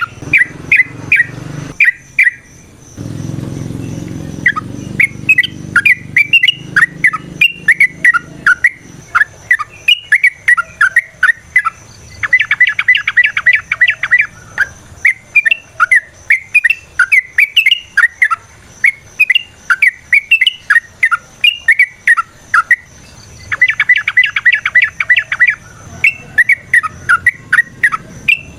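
Yellow-vented bulbul (trucukan) singing a run of quick, bubbly chattering phrases, broken twice by bursts of fast rolling trill, the long 'ropel' song used as a lure to provoke other males.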